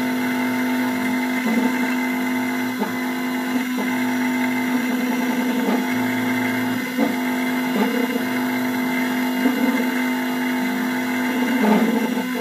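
ART series CNC engraving machine's spindle and cutter milling a flat metal plate: a steady machine whine, marked by short clicks every second or two.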